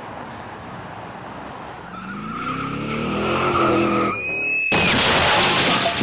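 A car engine note climbs in pitch and grows louder. About four seconds in, tyres screech briefly, and then a loud crash noise follows and carries on to the end.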